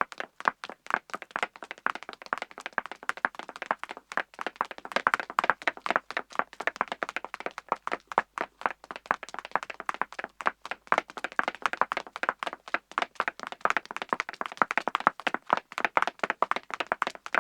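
Footsteps sound effect: a fast, dense run of sharp, clicking steps with little low end, many per second and without a break.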